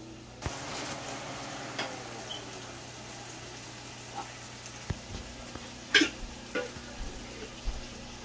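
Cumin seeds and garlic sizzling in hot oil for a dal tempering (chhonk). The sizzle starts suddenly about half a second in and runs on steadily, with a few sharp knocks of a utensil against the pan.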